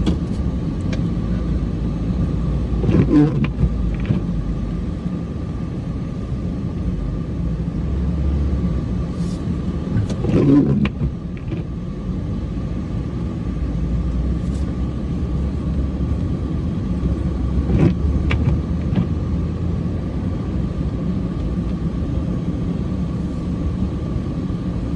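Cummins diesel pickup truck engine running steadily while plowing snow, a continuous low rumble with a faint steady whine. A couple of knocks, about 3 seconds and 10 seconds in.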